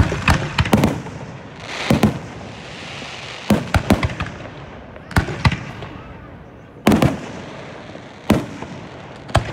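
Aerial firework shells bursting overhead: a run of sharp booms, some single and some in quick clusters, one to two seconds apart. A hissing rush sounds between bangs about two to three seconds in.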